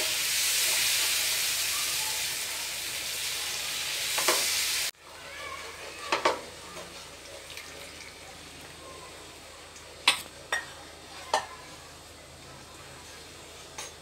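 Hot milk sizzling as it hits a hot flour-and-butter roux in a frying pan while a wooden spatula stirs it; the sizzle cuts off suddenly about five seconds in. After that, quieter stirring of the thickening sauce with a few sharp knocks of the spatula against the pan.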